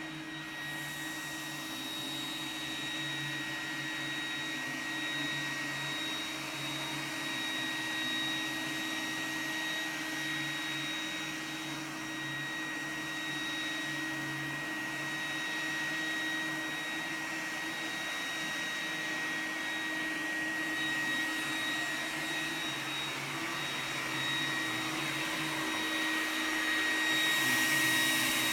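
Roomba robot vacuum running: a steady whir with a thin high whine and a low hum that pulses unevenly. It grows a little louder and hissier near the end.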